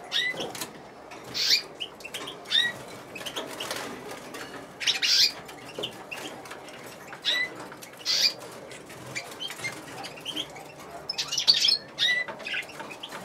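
Caged domestic canaries giving short, scattered chirping calls, with a few louder brief bursts of wing flapping.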